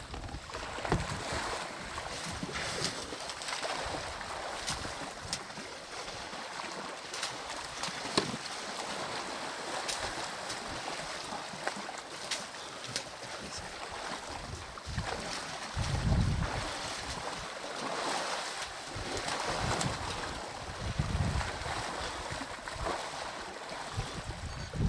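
Water sloshing and splashing as young elephants roll and wrestle in a muddy waterhole, with scattered small splashes and a few short low rumbles in the second half.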